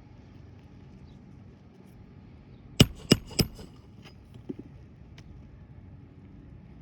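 Three sharp strikes in quick succession, about a third of a second apart, as nails are driven into asphalt roof shingles, followed a second later by a fainter knock.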